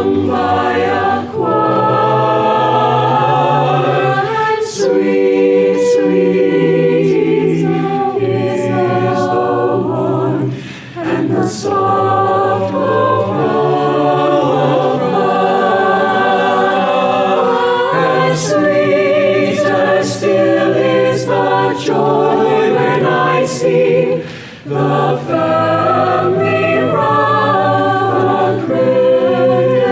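Choir singing in held chords, with two short breaks between phrases, about eleven and twenty-five seconds in.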